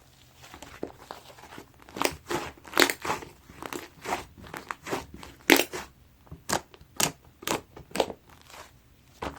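White slime being squeezed and pressed by hand, giving off crisp pops and crackles as air pockets burst. It is soft at first, then from about two seconds in come louder irregular pops, roughly one or two a second.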